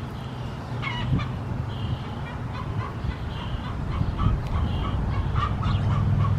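Animal calls on a farm: short high calls repeating about every second and a half, with scattered chirps, over a steady low hum.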